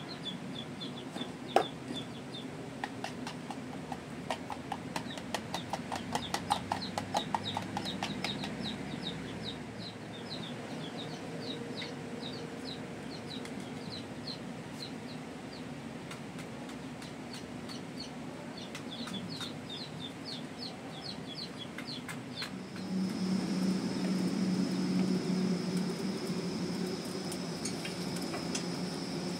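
Chickens clucking and cheeping in quick runs of short, high calls. A steady hum with a faint high whine sets in near the end.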